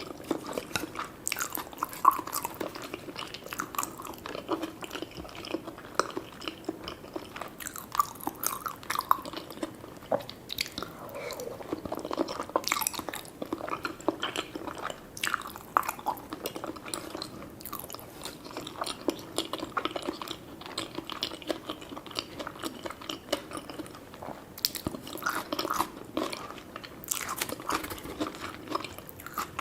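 A person chewing and biting mouthfuls of sushi and gyoza, with many short clicks and crunches.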